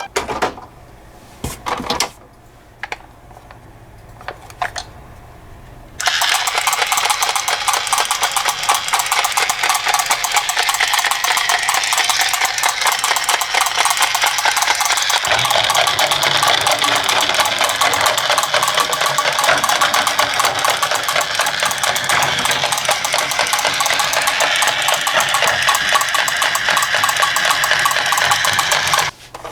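Toy minicars rolling, making a dense, rapid rattle of fine clicks. A few light clicks come first, and the steady rattle sets in about six seconds in.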